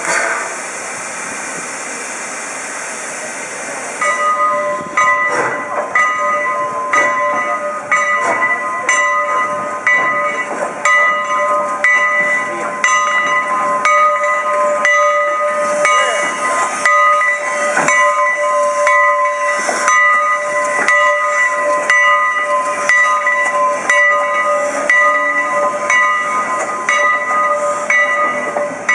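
Steam locomotive venting a steady hiss of steam. About four seconds in, its bell starts ringing about once a second and keeps ringing, over the engine's working noise.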